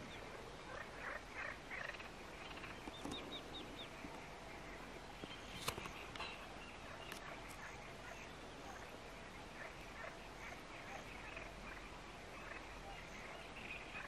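Faint natural evening chorus of birds by a lakeshore, with scattered short chirps and quick trills over a low background hiss.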